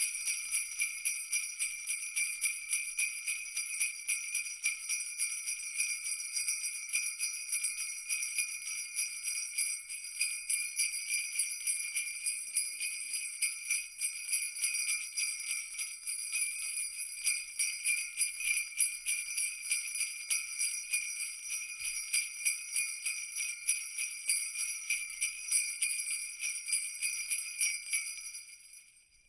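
Jingle bells shaken continuously, a dense high jingling that pulses in loudness, fading out near the end.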